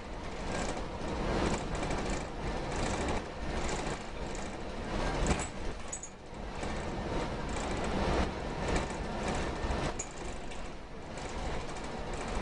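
Rumbling noise of a moving vehicle, rising and falling, with scattered light clicks and rattles.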